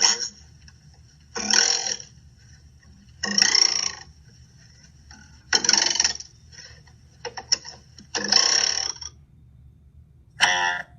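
A string of short cartoon sound effects played one after another: about six separate blips, each under a second long, a second or two apart, with a couple of quick clicks between them.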